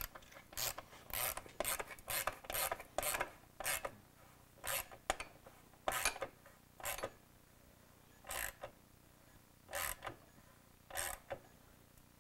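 Ratchet wrench worked in short raspy back-and-forth strokes, running down bolts during motorcycle reassembly. The strokes come quickly at first, then slow and grow further apart in the second half.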